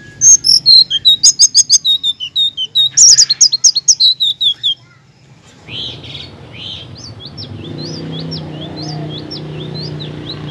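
Selendang biru (sitrun) songbird singing. For about five seconds it gives a loud, rapid string of sharp chirps that drop in pitch, then stops. After that comes a fainter run of quick rising notes over a low background rumble.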